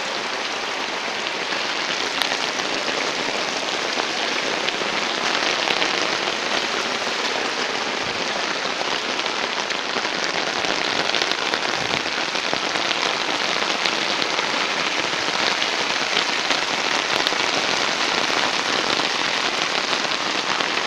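Storm runoff rushing and splashing down a footpath in a steady, continuous torrent of muddy rainwater.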